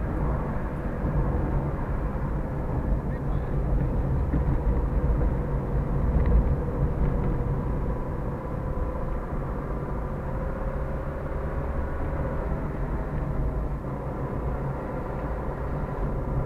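Vehicle driving at steady speed, heard from inside the cabin: a continuous low engine and road rumble with faint steady whining tones above it.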